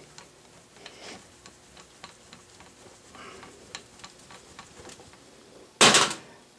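The compound slide of an Atlas lathe is cranked by hand, with faint light clicking from the handle and feed screw. The gib screws are backed off, so it cranks freely. A brief loud noise comes near the end.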